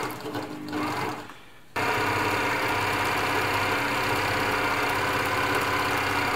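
Elna Air Electronic TSP sewing machine stitching a stretch stitch through knit fabric: it runs briefly, stops, then starts abruptly about two seconds in and sews at a steady speed, stopping at the very end.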